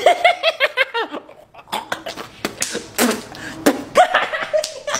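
A man laughing in quick repeated pulses, followed by short vocal sounds and a few sharp clicks.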